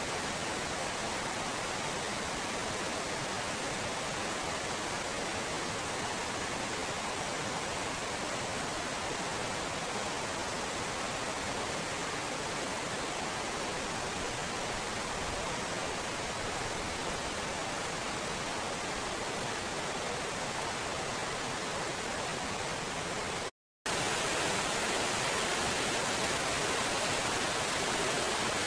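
Waterfall and mountain stream pouring over rocks, a steady rushing hiss. It cuts out for a moment near the end and comes back a little louder.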